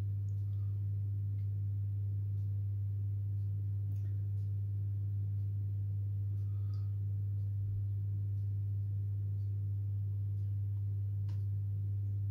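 A steady low hum on one deep tone, unchanging, with a few faint scattered ticks over it.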